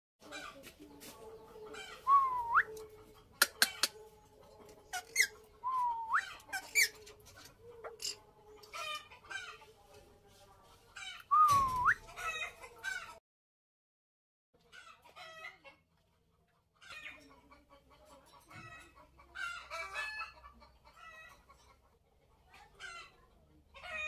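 Indian ringneck parakeets calling: several loud, sharp calls that dip and then sweep steeply up in pitch, with a few sharp clicks among them, then softer chattering and chirps in the second half.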